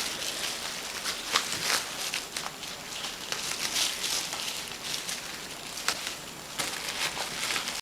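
Plastic bag crinkling and rustling in irregular short bursts as puppies tug at it and play with it.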